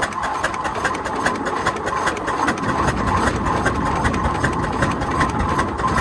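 1908 Marshall 7NHP steam traction engine running, with a fast, even mechanical clatter over a steady rumble.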